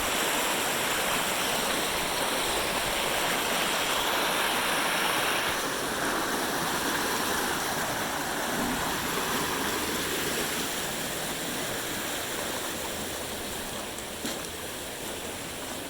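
Rain-swollen canal running fast after a storm: a steady rush of water that eases off gradually through the second half.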